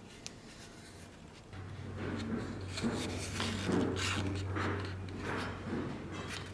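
Steel sword blade sliding into a tight-fitting wooden scabbard core, a run of uneven scraping and rubbing of steel on wood over a few seconds as it goes in.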